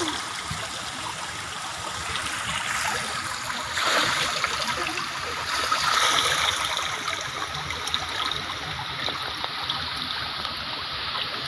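Water spilling steadily over the rim of a round overflow pool and splashing into the pool below, with louder swells of splashing about four and six seconds in.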